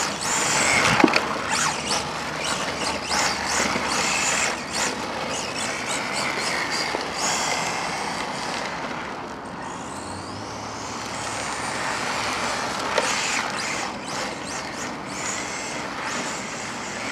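Turnigy 1/16 brushless RC rally car driving, its brushless motor whining up and down in pitch with the throttle over a steady hiss of tyres and many scattered clicks.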